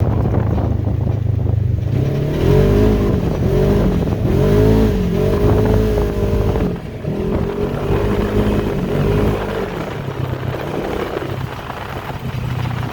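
Polaris ATV engine running loud, revving up and easing off again and again as the throttle is worked, then settling to a steadier, lower run near the end.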